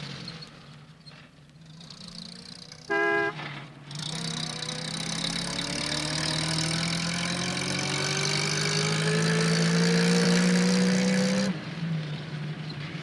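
Cartoon post van driving: its engine fades away, a short horn toot sounds about three seconds in, then the engine drones with its pitch slowly rising for several seconds before cutting off suddenly near the end.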